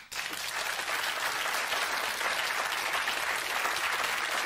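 Studio audience applauding: dense, steady clapping that breaks out suddenly.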